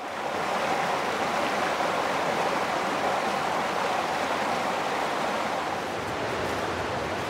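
Running stream water rushing steadily.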